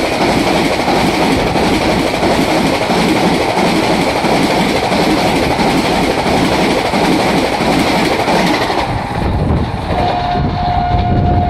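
Vande Bharat Express electric train set passing at speed close by, a loud, steady rush of air and wheel clatter. About nine seconds in the sound drops to a lower rumble, and near the end a horn sounds twice as a steady high tone.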